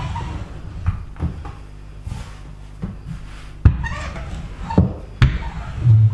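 Rolling pin rolling out dough on a table: a low rumble broken by several sharp knocks as the pin bumps and presses on the board.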